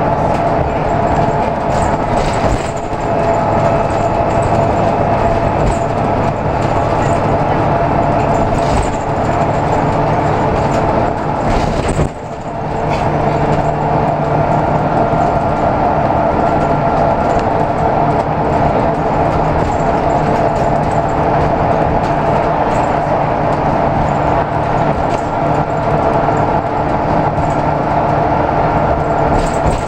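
Interior noise of a Reading Buses bus under way: the engine and drivetrain run with a steady hum, dipping briefly about twelve seconds in.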